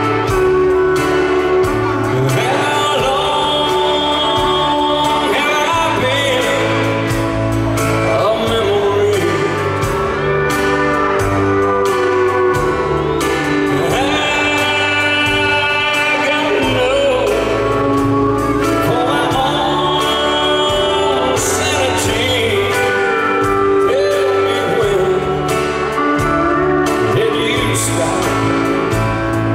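Live country music in an arena: a man sings a slow ballad at the microphone over a band with guitar and drums.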